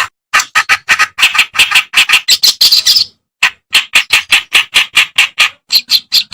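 Kerak basi (reed warbler) singing a fast run of loud, harsh, chattering notes, about four or five a second, with a short break about halfway through.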